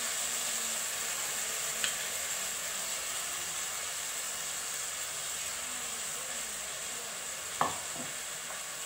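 Jaggery-and-milk syrup sizzling steadily in a kadai under freshly added ground chapathi crumbs. A short sharp click comes near the end.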